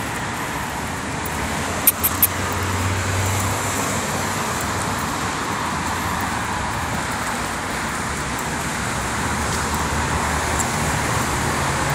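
Steady road traffic noise from passing cars on a busy city street. A few sharp clicks come about two seconds in, and a low hum swells briefly around three seconds in.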